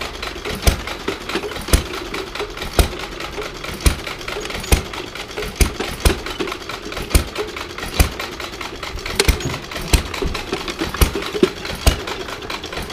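Miniature Case hay press running off a belt from a small stationary engine, with a steady mechanical clatter and a sharp knock about once a second as the plunger packs hay into the bale chamber.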